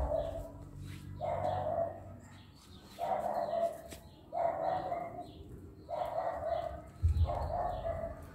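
An animal calling over and over, about six calls each under a second long, roughly one every second and a half. Fainter high chirps come between the calls.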